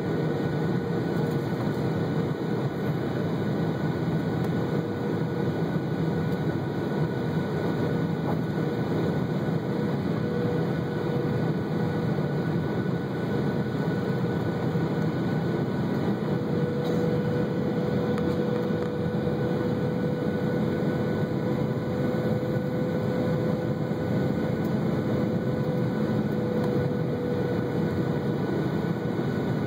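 Cabin noise of a Boeing 737-800 on approach, heard from a window seat over the wing: the steady rush of airflow and the CFM56-7B turbofan engines running, with a steady hum through it.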